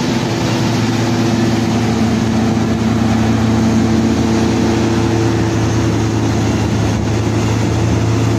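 Hitachi Zaxis 520 crawler excavator's diesel engine running at a steady speed, a constant low hum, while the machine swings its upper body around on the trailer.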